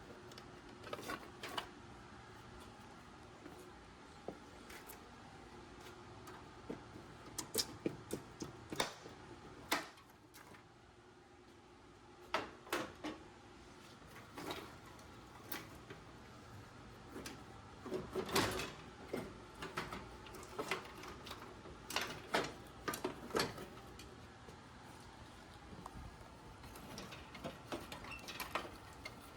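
Scattered light clicks, knocks and rattles of hand work on a car's wiring harness, with wires and connectors being pulled loose, at irregular intervals, with a brief quiet spell about ten seconds in.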